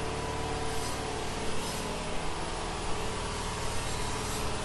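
An engine running steadily, a constant hum without change in pitch.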